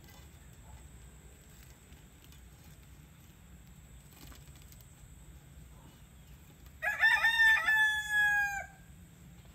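A rooster crows once near the end: a call of about two seconds that starts with short broken notes and ends in a long held, slightly falling note. Before it only faint background sound.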